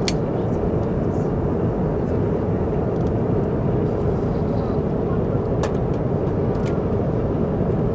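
Steady cabin noise of an Airbus A330 airliner in flight: an even rush of engine and airflow, with a few light clicks.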